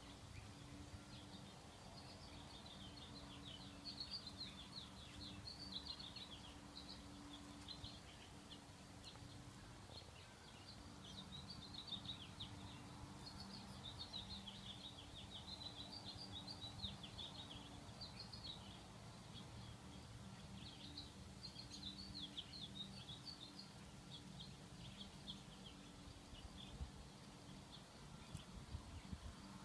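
Faint small birds twittering in bouts of rapid chirps that come and go, over a steady low hum.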